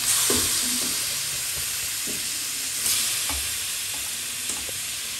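Raw mutton liver pieces sizzling as they go into hot oil and onion-tomato masala in a kadai, a steady hiss that swells at the start and again about three seconds in, then eases off. A few light knocks of the pieces and ladle in the pan.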